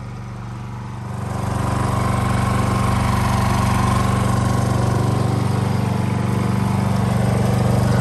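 Honda portable inverter generator running steadily under the load of the van's air conditioner, a constant engine hum that grows louder about a second in.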